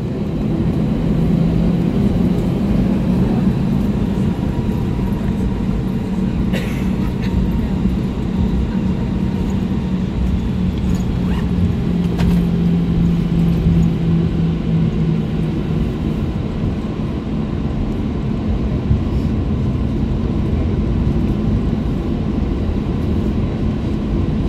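Cabin noise of an Airbus A320-214 taxiing, with its CFM56-5B engines at idle: a steady rumble, plus a low hum that fades out about two thirds of the way through.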